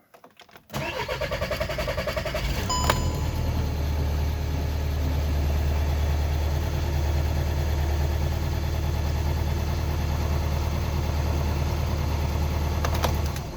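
Skoda Octavia diesel engine cranked on the starter for about two seconds, catching with a sharp tick, then idling steadily until it is switched off near the end. The long crank fits the hard start that is blamed on a failing crankshaft position sensor (G28).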